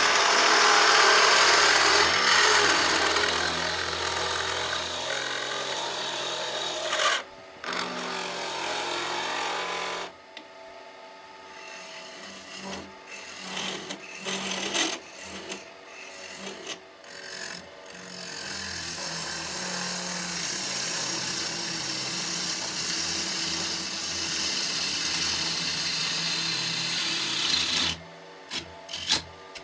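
Wood lathe running while a gouge cuts the inside of a turned wooden mortar, a rasping hiss of wood being cut over the lathe's hum. The cutting is steady at first, breaks off into short cuts with gaps in the middle, then runs steadily again before stopping briefly near the end.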